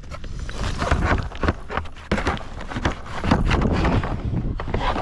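Wind buffeting the microphone, with a run of knocks and rustles from handling on the kayak.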